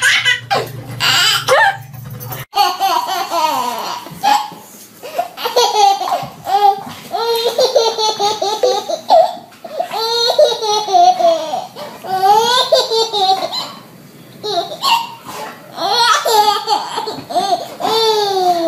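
A baby laughing hard, in repeated fits of high-pitched belly laughter with short pauses between them.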